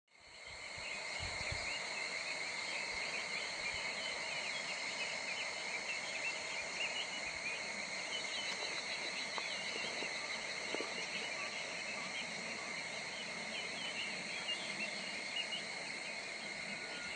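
Outdoor chorus of insects: a steady high-pitched drone with many short overlapping chirps over it, fading in just after the start.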